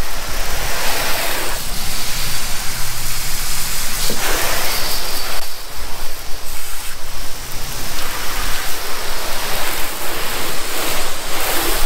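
Water spraying from a hose onto a freshly waxed outboard motor to rinse it, a steady hiss of spray that shifts in strength a few times as the stream moves over the motor.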